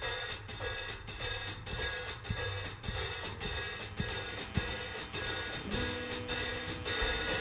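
Quiet drum intro of a rock song: hi-hat and cymbal keeping steady time over kick and snare drum, with a held note swelling in near the end.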